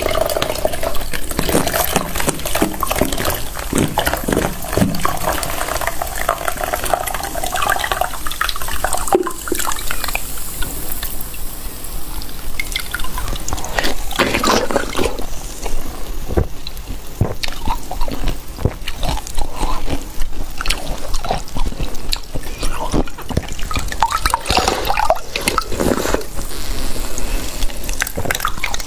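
Cola pouring and dripping off a block of frozen cola ice into a plastic bowl of cola, a dense crackle of small drips and splashes. A gurgling pour with a steady tone in the first several seconds.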